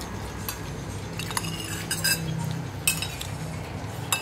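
Metal spoons clinking and scraping against ceramic plates and bowls as people eat, about six sharp clinks scattered irregularly.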